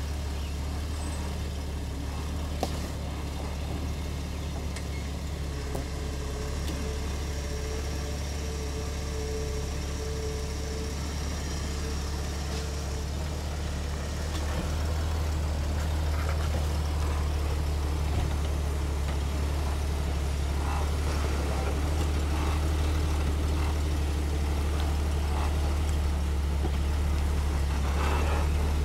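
Lifted Jeep Grand Cherokee's engine running at low revs as it crawls slowly over rocks, a steady low drone that grows louder about halfway through as the vehicle comes close. A single sharp knock is heard a few seconds in.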